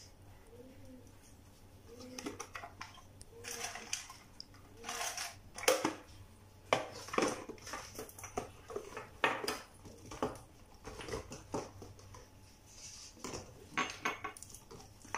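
Kitchen clatter: condiment bottles knocking and clinking against each other and a plastic basket as they are picked through, with clinks of dishes and utensils, in a string of sharp knocks from about four seconds in. A faint whine repeats about once a second in the first few seconds.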